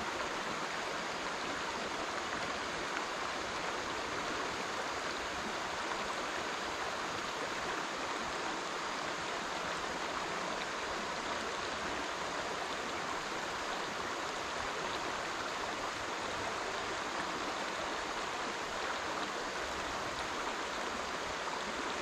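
Small creek's water running steadily over rocks: an even, unbroken rushing hiss.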